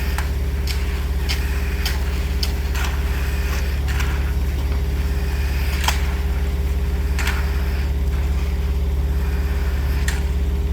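Concrete mixer truck's diesel engine running steadily during a pour, with scattered short clinks and scrapes over it.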